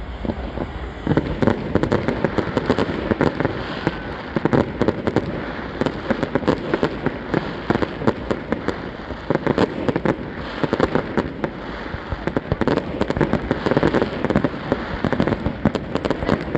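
A fireworks display with rapid bangs and crackles going off continuously in dense volleys, which start up about a second in.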